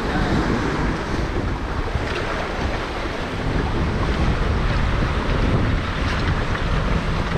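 Seawater washing and sloshing among shoreline boulders, with wind buffeting the microphone in a low rumble.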